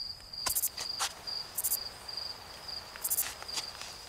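A night-time insect chorus. A cricket trills steadily while a higher insect chirp pulses about once a second. A few sharp clicks cut through, the loudest about half a second in, about a second in and near the end.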